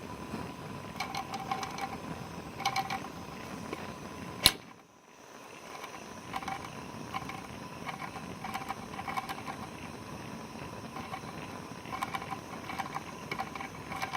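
Small model Stirling engine running with irregular light clicking and rattling from its mechanism, with one sharp click about four and a half seconds in. The displacer has worked loose from its rod again.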